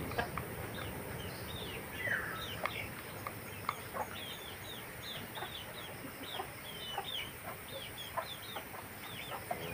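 Gamecocks pecking wet feed from plastic bowls, with scattered light clicks, against many quick, short, falling chirps of birds throughout. A brief harsh call sounds about two seconds in.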